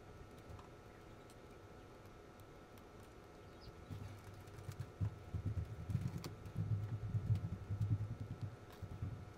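Handling noise on a workbench as a small model locomotive gear truck is worked on: a few faint clicks at first, then from about four seconds in, irregular low bumping and rubbing from the parts being brushed and handled.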